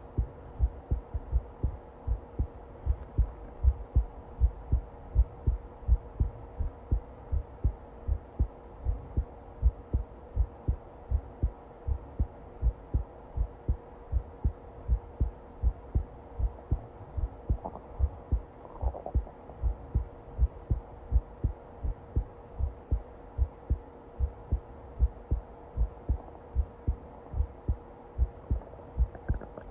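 Heartbeat: steady, evenly spaced low thumps in a regular lub-dub rhythm, over a faint steady hum.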